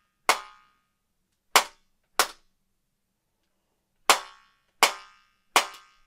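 About seven sharp cracks struck with a hand-held stick at irregular intervals in a small bare-walled room. Each leaves a brief fluttering ring, the flutter echo of sound bouncing between close, hard parallel walls.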